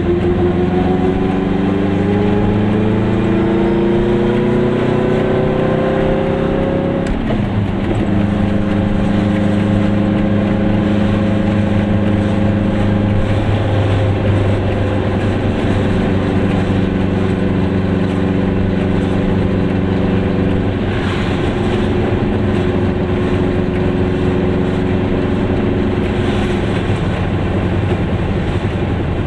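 Goggomobil's two-stroke twin-cylinder engine heard from inside the small car while driving: the engine pitch rises steadily for about seven seconds under acceleration, drops sharply at a gear change, then holds a steady pitch while cruising, over tyre and road noise.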